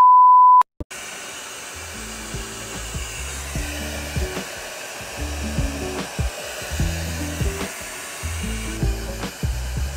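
A loud, steady, high beep lasting about half a second, then a hair dryer running steadily under background music with a low, stepping melody.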